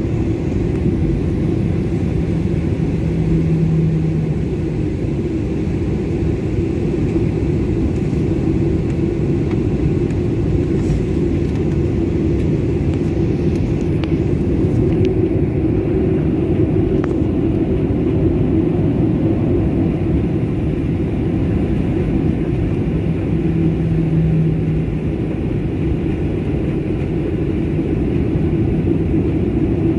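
Steady cabin noise inside a Boeing 737 MAX 9 taxiing, its CFM LEAP-1B engines at idle thrust: an even low rumble.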